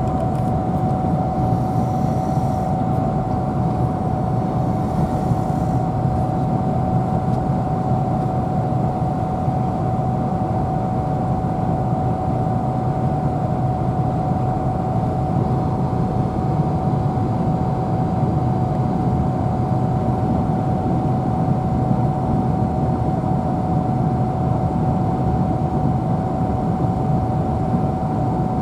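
Steady road and engine noise heard inside a car driving at speed, with a thin steady whine over the rumble.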